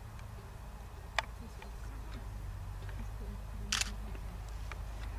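Camera handling noise on the microphone: a steady low rumble, a sharp click about a second in, and a short hiss near four seconds in.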